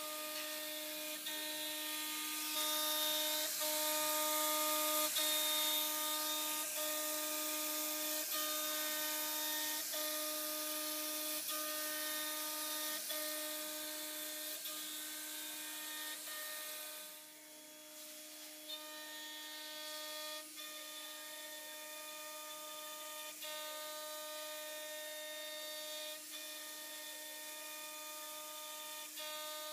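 CNC router spindle running with a steady whine as its bit mills a curved MDF cabinet-door part in swept passes. A hiss of cutting runs with it through the first half and drops away a little past halfway, leaving mostly the whine. Faint ticks come about every second and a half.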